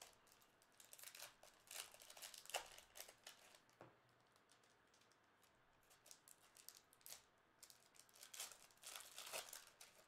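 Foil trading-card pack wrappers crinkling and tearing as silver packs are ripped open by hand. The faint crackling comes in two spells, with a few quieter seconds in between.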